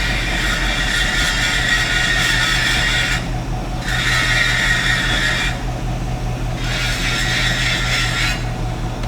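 ZIL truck engine, converted to run on LPG, running steadily with an even low hum. A high hiss comes and goes over it in three stretches of a second or two each.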